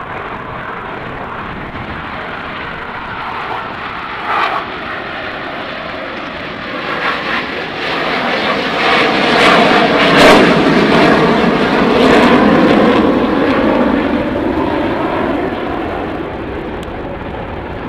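Airshow aircraft flying past overhead: engine noise builds to its loudest about ten seconds in, then fades as the aircraft pass.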